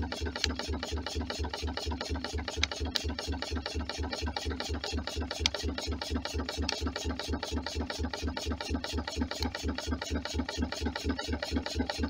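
Home-built wood-fired Stirling engine running steadily, a regular beat of about five strokes a second, with an occasional light click.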